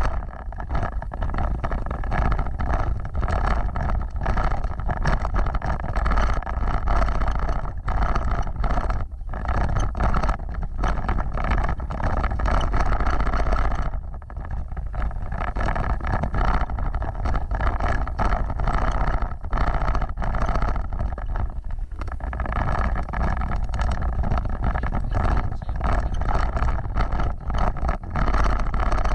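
Off-road vehicle driving, a steady engine rumble with wind on the microphone, broken by many short knocks and jolts, with a brief lull about halfway through.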